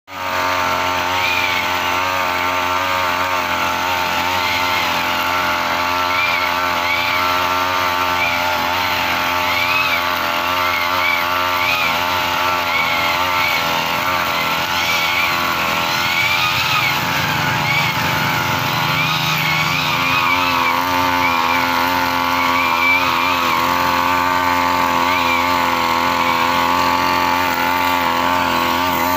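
Backpack brush cutter's small petrol engine running steadily under load while cutting grass, its pitch wavering slightly about once a second.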